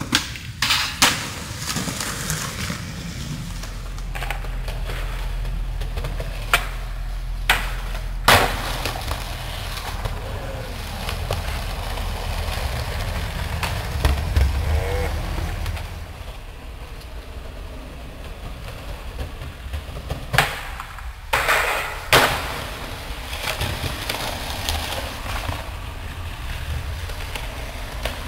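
Skateboard wheels rolling over concrete in a steady low rumble, with sharp clacks of the board hitting the pavement several times, the loudest about a second in, about eight seconds in, and twice about twenty seconds in.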